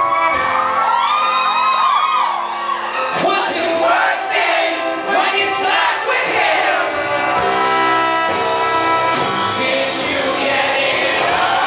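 Live indie pop band playing with a male lead singer, drums, guitar and bass, with shouts and whoops from the audience, heard through a phone's microphone in a concert hall.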